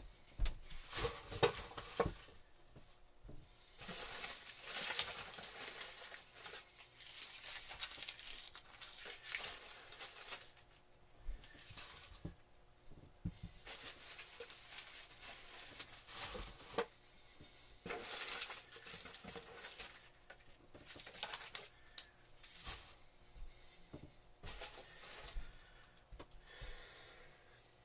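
Plastic packing material crinkling and rustling as a parcel is unwrapped by hand, in irregular bursts with a few sharp clicks.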